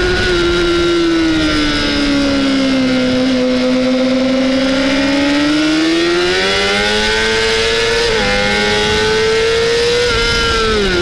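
Honda CBR600RR inline-four engine running hard, recorded on the bike itself. The revs ease down over the first few seconds, then climb steadily with a brief dip about eight seconds in, and fall away again near the end.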